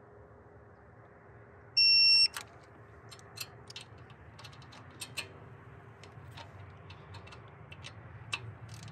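Digital torque wrench giving one loud half-second beep as it reaches its set torque of 6.8 newton metres on a rocker cover bolt. A few light clicks of the wrench and socket follow as it is moved on.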